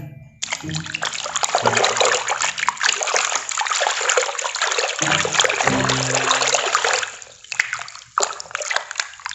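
Water splashing and sloshing in a plastic tub as a hand scrubs sticky mud off a plastic toy lion under the water. The splashing eases off about seven seconds in, then starts again about a second later.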